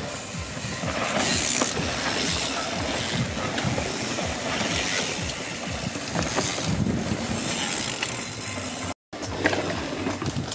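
A passing train: a steady rolling rumble and rail noise that swells about a second in and holds. The sound drops out completely for a split second about nine seconds in.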